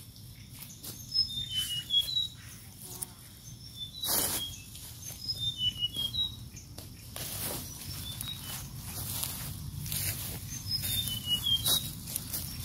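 Small birds chirping in short high notes again and again, over irregular rustling and scraping of hands digging in soil and leaf litter, with a few louder rustles at about four seconds, seven and a half seconds and near the end.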